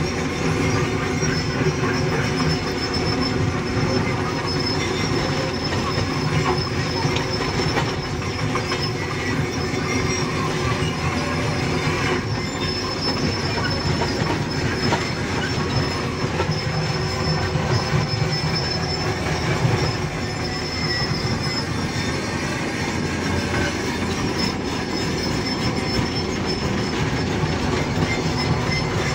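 Tata Hitachi hydraulic excavator's diesel engine and hydraulics running steadily under work, heard from inside the operator's cab, with a thin high whine over the rumble.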